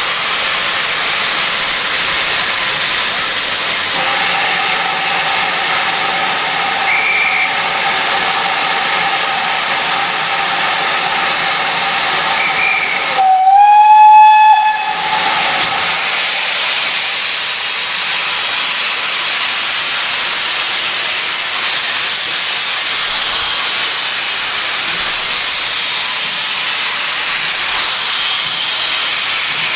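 Steam hissing steadily from the GWR Manor-class locomotive 7822 Foxcote Manor, with one loud blast on its steam whistle about halfway through, lasting about a second and a half.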